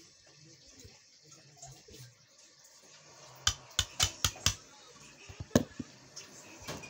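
Sharp metallic clicks and clinks of tools or metal parts being handled during drive shaft boot work. There is a quick run of about five about halfway through, then a few more shortly after.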